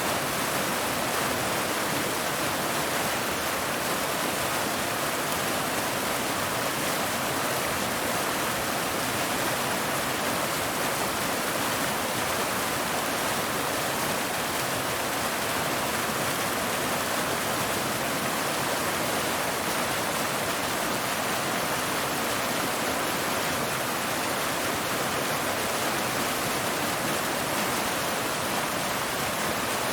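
Waterfall: water pouring steadily over rocks in an even, unbroken rush, strongest in the upper range with little low rumble.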